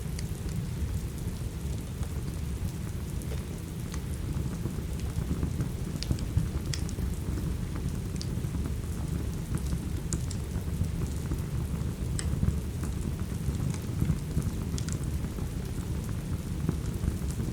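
Steady rain with a deep, even rumble, and the sharp pops and snaps of a crackling wood fire every second or two.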